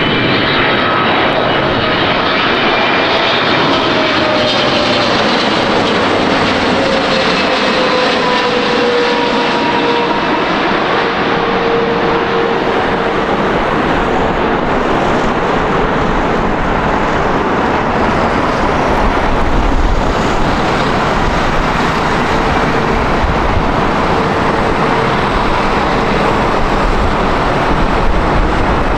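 Jet airliner passing close by, its engines giving a loud, steady roar with whining tones that slide down in pitch as it goes past.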